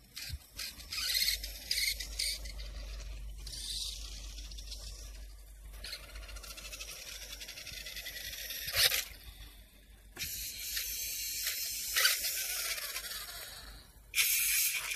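Toy remote-control car driving in short runs: its small electric motor whirring and its wheels hissing on the floor, starting and stopping repeatedly, with a sharp knock about nine seconds in and another about twelve seconds in.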